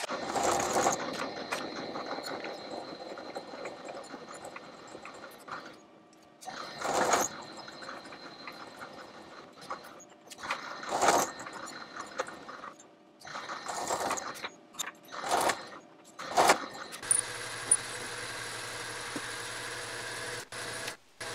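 Milling machine running while an end mill cuts the head of a steel flange-head bolt held in a collet block, a steady machining noise, broken by several short loud noisy bursts. Near the end a metal lathe runs with a steady low hum and a high whine.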